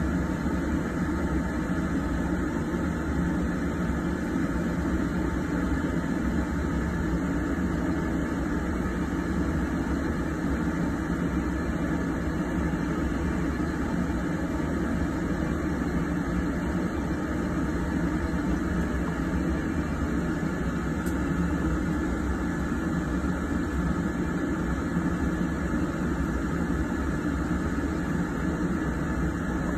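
Steady low machine hum with a rushing noise, unchanging throughout.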